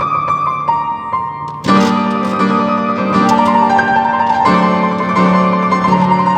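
Piano music from a sonata movement: a thinner passage of rapidly repeated notes, then loud, dense chords break in about two seconds in and carry on.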